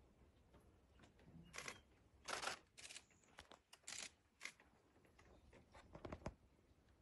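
Near silence broken by several short rustles and clicks, the loudest about two and a half seconds in, and a dull thump near the end.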